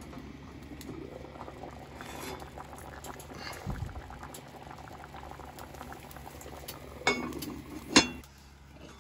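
Beef stew boiling in an enameled cast-iron Dutch oven, a steady bubbling and popping. Near the end come two sharp knocks, the second the loudest.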